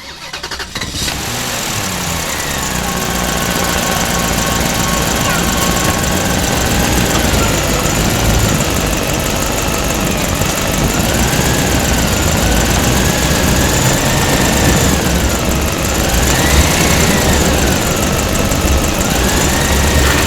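An engine or motor running steadily, with a whine that wavers slowly up and down in pitch.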